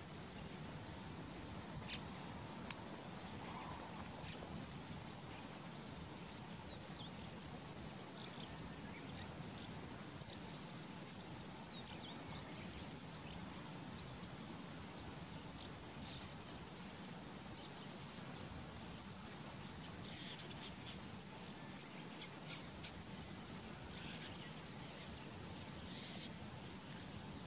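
Small wild birds chirping on and off: short, high calls scattered throughout, a burst of sharper calls about twenty seconds in and three loud chirps a couple of seconds later. A faint steady low background noise lies underneath.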